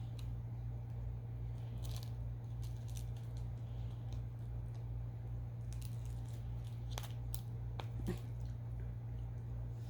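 Soft squishing and a few faint clicks of someone chewing a watermelon Push Pop gummy roll, over a steady low electrical hum.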